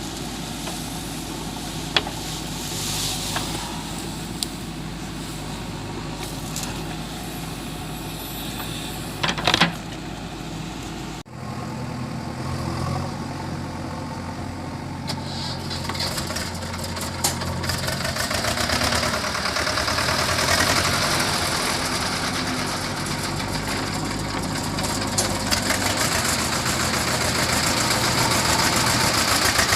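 JCB 3DX backhoe loader's diesel engine running, with two sharp knocks in the first part. The sound changes abruptly a little over a third of the way through, then the engine grows steadily louder toward the end.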